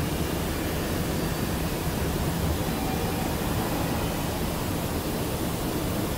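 Steady factory background noise: an even rush of air with a faint low hum, unchanging and with no distinct events.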